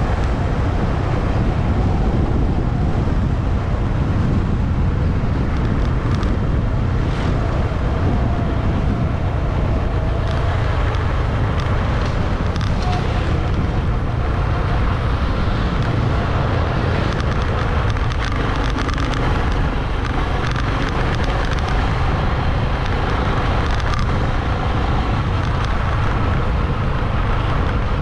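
Steady wind rush on the microphone of a moving Honda motorcycle, with the bike's engine and road noise beneath it.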